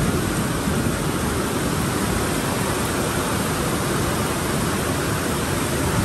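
Heavy rainstorm: a steady, unbroken rush of wind-driven rain.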